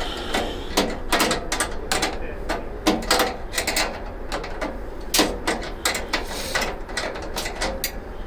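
Irregular metallic clicks and clanks of hand tools and hardware being worked on a steel tool cart during assembly.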